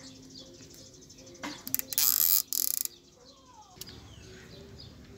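A nylon zip tie pulled through its ratchet head: a loud, rapid zipping rattle of clicks in two quick pulls about two seconds in. Birds chirp in the background.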